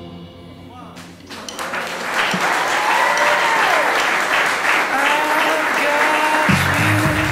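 Crowd of wedding guests applauding and cheering, the clapping swelling up about a second in and holding steady, with a few whoops over it.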